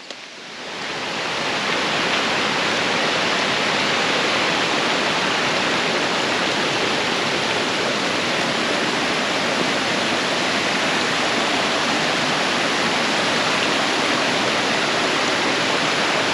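Rushing water of a mountain stream or waterfall, a steady hiss and roar that swells up over the first second or two and then holds even.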